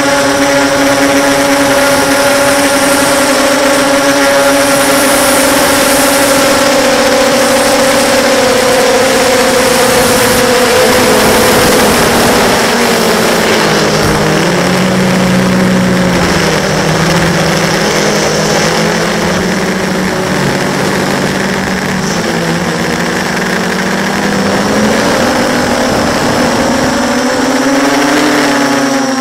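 Motors and propellers of a 6-inch FPV quadcopter whining steadily. The pitch drops gradually about ten seconds in as the throttle comes off, stays low, then rises again near the end as the throttle comes back up. A rushing hiss runs under it.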